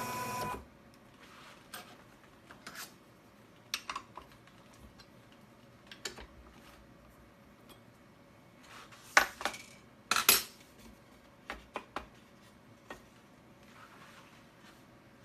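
A machine's steady whine cuts off about half a second in. Then come scattered light metallic clinks and knocks, the two loudest about nine and ten seconds in.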